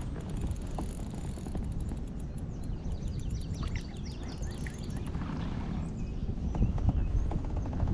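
Wind buffeting the microphone with a steady low rumble. A run of faint, high chirps comes about three to five seconds in.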